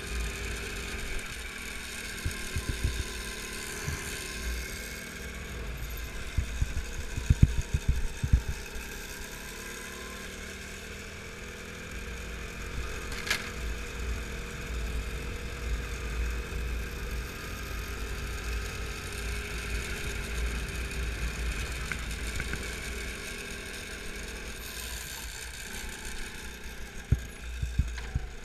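Go-kart engine heard onboard while driving a lap, its pitch slowly rising and falling with the throttle, over a constant low rumble. A cluster of sharp low thumps comes about seven to eight seconds in, with a few more near the end.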